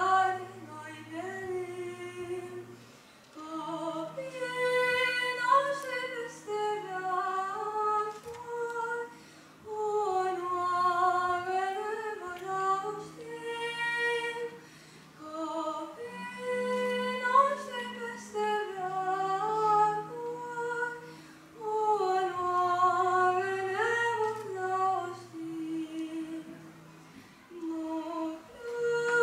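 A boy's unbroken voice singing a patriotic song solo through a microphone, over a backing of long held low notes that change every few seconds.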